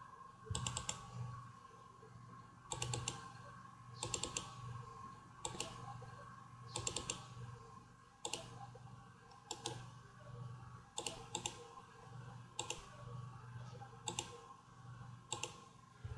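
Computer keyboard keys tapped in short groups of two or three clicks about every second and a half, over a faint steady hum.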